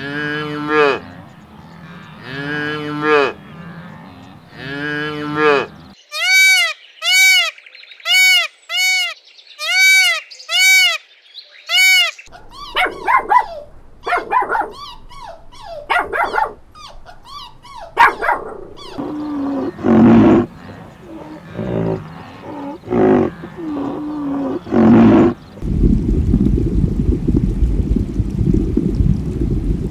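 Calf bawling three times, then a run of high, evenly spaced chirping calls about twice a second. Then a string of short dog barks and whines, and near the end a steady low rumble of aquarium water.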